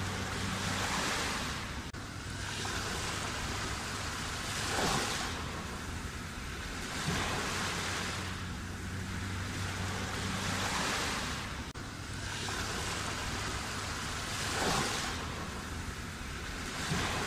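Sea waves breaking and washing on the shore. The surf swells and ebbs about every two seconds, with a few sharper crashes among them.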